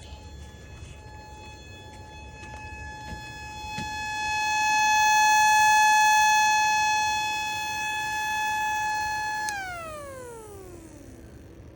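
A 12-port model tornado siren holds one steady high tone, growing louder toward the middle and then easing. Near the end it winds down, its pitch falling smoothly and fading.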